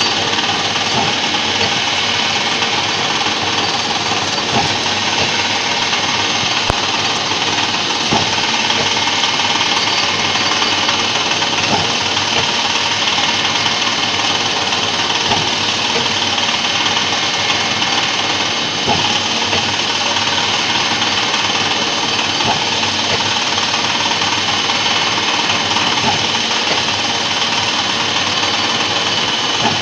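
Four-axis Hitachi CNC milling machine cutting metal: a steady machining noise with a constant high tone from the spindle and cutter, and faint scattered ticks.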